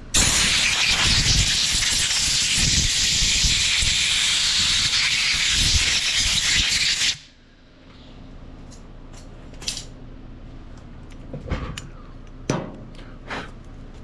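Compressed-air blow gun blasting air through a cleaned small-engine carburetor body to blow it dry: a loud steady hiss for about seven seconds that cuts off suddenly. After it, a few light clicks and taps of small parts being handled.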